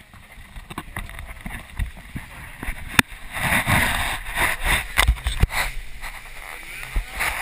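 Small motorboat running across choppy water: irregular knocks and thumps of the hull on the waves, with water splashing and wind buffeting the microphone.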